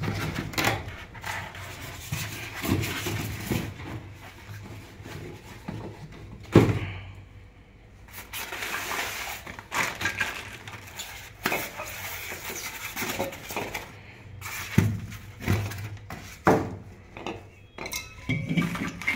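Handling noise from unpacking a new LG refrigerator compressor: cardboard box flaps rustling and scraping, with irregular knocks and metallic clinks as the heavy compressor is lifted, turned and set down. The sharpest knock comes about six and a half seconds in.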